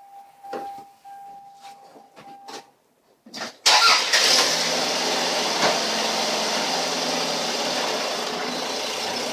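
A few light clicks and a thin steady tone, then about three and a half seconds in a car engine cranks briefly, catches and settles into a steady run.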